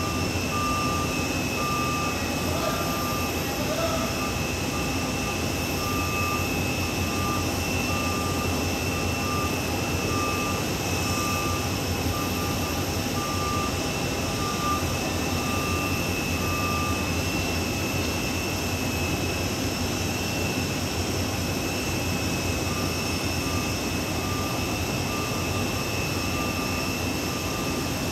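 Steady jet whine and rumble of a parked airliner at the gate. Over it, a warning beeper from the ground equipment sounds a little more than once a second, stops about 17 seconds in and starts again about 6 seconds later.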